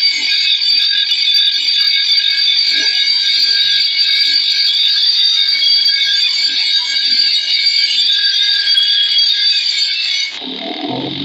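A steel bolo blade is ground against a spinning abrasive disc, making a steady, loud, high-pitched grinding whine of metal on the wheel. About ten seconds in the grinding drops off and the sound changes.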